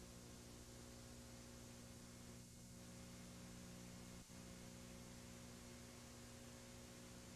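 Near silence: a faint, steady electrical mains hum over a light hiss.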